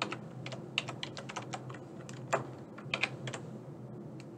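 Typing on a computer keyboard: irregular key clicks as an email address is entered, over a faint steady low hum.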